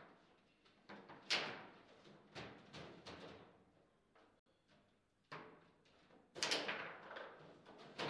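Table football in play: irregular sharp knocks and clacks as the ball is struck by the plastic men and rods bang against the table, loudest about a second in and in a cluster near the end.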